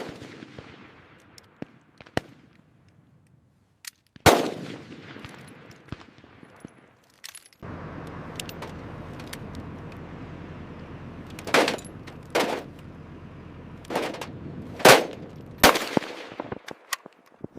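M240 machine gun firing: a loud shot with a long echo about four seconds in. A steady low rumble then begins abruptly, and over it come about five more sharp shots in the second half.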